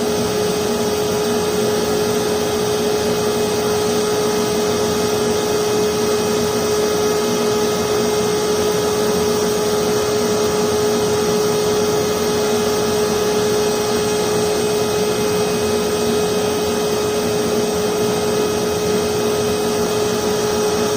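Forced-air propane forge burner running at 3 psi: its electric blower gives a steady whine over the even rush of air and gas.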